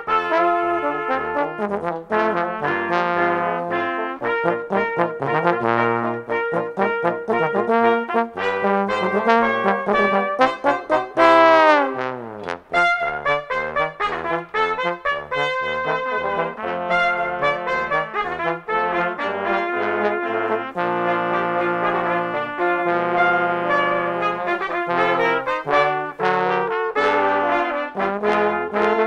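Five-piece brass ensemble playing, French horn and trombones among them: sustained chords and melody over a short, detached low bass line, with a loud falling glide about eleven seconds in.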